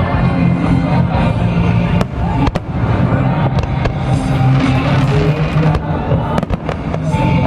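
Aerial fireworks bursting in several sharp bangs, a couple about two seconds in and a cluster near the end, over steady loud music.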